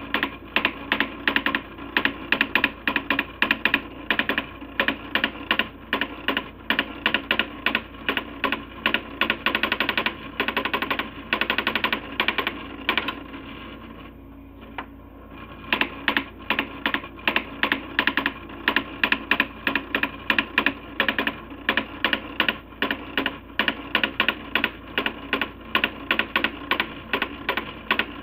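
Coleco Adam SmartWriter daisy wheel printer printing graphics: its print hammer strikes in fast runs of sharp clicks. Partway through it pauses for about two seconds, then carries on.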